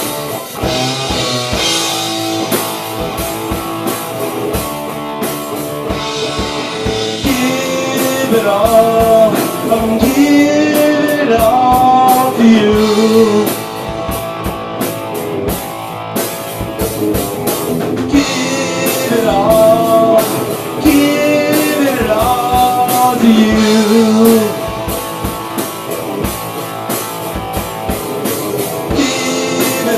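Rock band playing live: electric guitar over a drum kit, with cymbals and drum hits throughout. Through the middle a melody line of long held notes that bend in pitch rides on top of the band.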